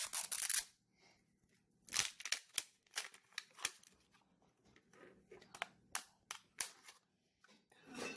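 The brittle outer shell of an L.O.L. Surprise! Pets ball being cracked and peeled off by hand, crackling and crinkling in several short bursts with pauses between.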